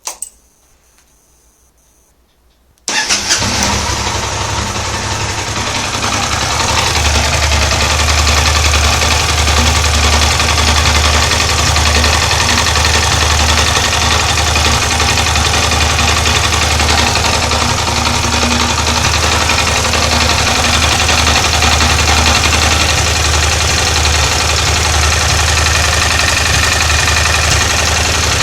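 A short click, then about three seconds in a Yamaha TDM 850's parallel-twin engine starts and settles into a steady idle. The idle carries the light tapping that the owner traces to the clutch, a knock that eases with the clutch pulled in and goes away in gear with the clutch engaged.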